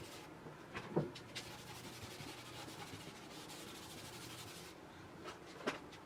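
Faint rubbing, with two light knocks: one about a second in and one near the end.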